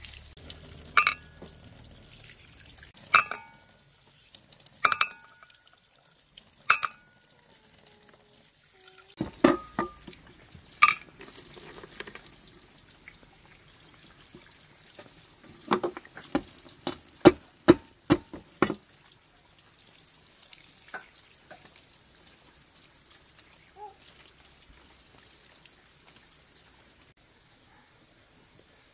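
Sharp clinks and knocks of utensils on cookware, some leaving a brief ring. Single strikes come every couple of seconds, then a quick run of about eight near the middle, and it goes quiet toward the end.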